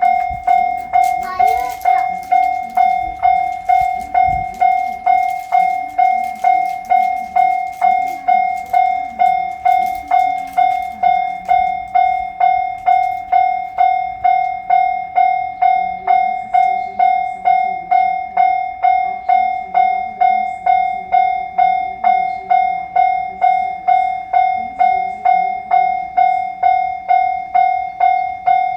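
Japanese railway level-crossing alarm ringing its steady "kan-kan", an electronic bell tone struck just under twice a second, warning that a train is approaching.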